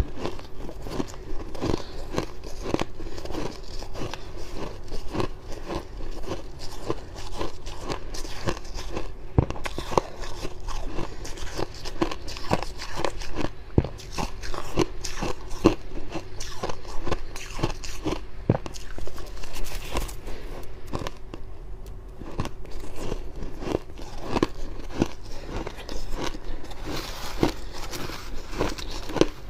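Close-miked chewing of crunchy freezer frost: a continuous run of sharp crunches as the frost is bitten and chewed.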